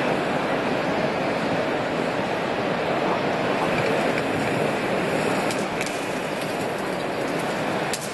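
Duck searing skin-side down in a hot frying pan: a steady sizzle of rendering fat, with a couple of light clicks of utensils on the pan late on.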